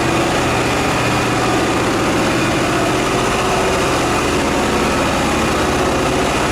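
Pressure washer running steadily, its motor and pump humming with a rapid pulsing under an even spray hiss.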